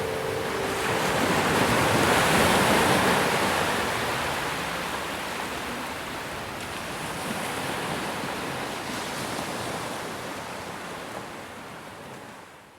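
Ocean surf washing on a beach, a steady rushing wash that swells about two to three seconds in, eases off and fades out at the end.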